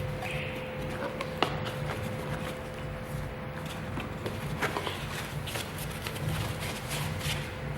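Scattered light clicks and taps of small objects being handled, over a steady low hum.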